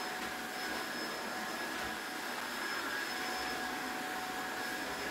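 An electric fan motor running steadily: an even whirring rush with a faint high whine over it.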